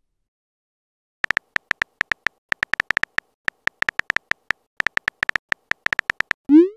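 Texting-app keyboard typing sound effect: short, identical high clicks, several a second, as a message is typed out letter by letter. Near the end comes a brief rising whoosh, the loudest sound, as the message is sent.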